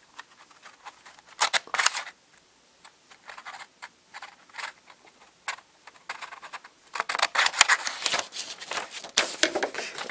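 Scissors snipping through a paper template in short cuts, then paper crackling and rustling from about seven seconds in as a fresh sheet is handled and pressed flat by hand.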